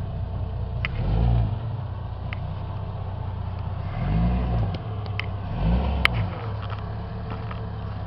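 Jeep Cherokee XJ engine running at low revs under load as it crawls a steep rock-and-dirt step, blipped up and back down three times. A few sharp knocks, one louder about six seconds in.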